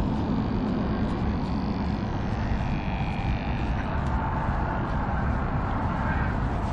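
Steady low outdoor rumble, even throughout with no rise or fall.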